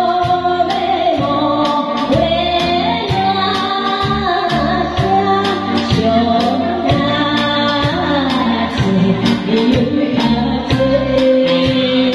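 A woman singing a Japanese song into a microphone over band accompaniment, with a steady beat of about two strokes a second.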